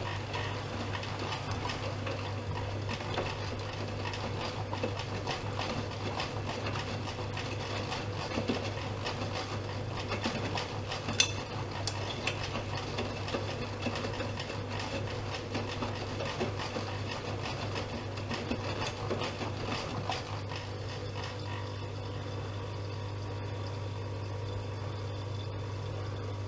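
Privileg Dynamic 7420 washing machine running a wash: water sloshing and clattering in the turning drum over a steady motor hum, with one sharp click about 11 seconds in. The sloshing dies down about 20 seconds in, leaving the steady hum.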